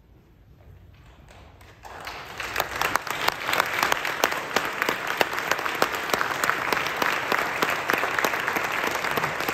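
Audience applauding: the clapping starts about two seconds in and carries on steadily, a dense patter of many hands.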